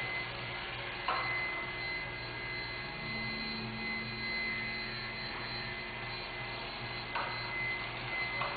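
Astromech droid's motorised 2-3-2 leg mechanism working as the body tilts: a low steady motor tone runs for about four seconds in the middle, with a clunk about a second in and another near the end, over a steady hum.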